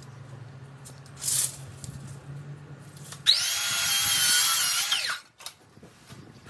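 Power drill run for about two seconds, its whine rising as it spins up and dropping as it winds down. A short burst of hiss comes about a second in.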